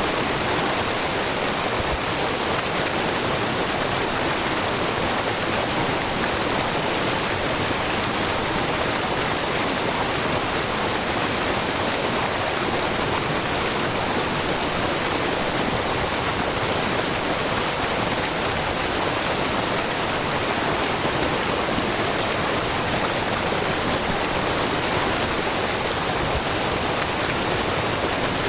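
Waterfall: a broad curtain of spring water falling a short drop onto rock and into a pool, making a steady, even rush with no change.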